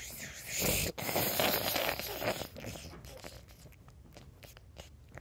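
Rough rustling and scraping right against the microphone, the loudest stretch lasting about two seconds. It fades into faint scattered ticks after about three seconds.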